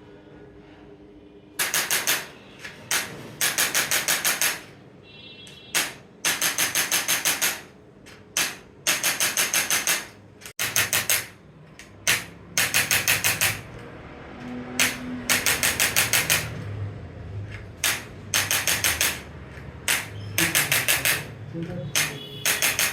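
Handheld percussive chiropractic adjusting instrument firing in short bursts of rapid, sharp clicks, each burst about a second long, repeated a dozen or so times with brief pauses between.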